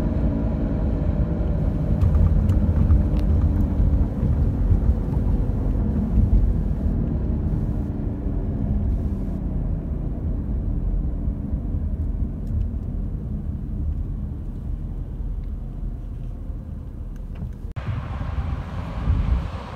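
Low rumble of road and engine noise heard from inside a moving car's cabin, slowly growing quieter. About eighteen seconds in it changes abruptly to outdoor traffic noise.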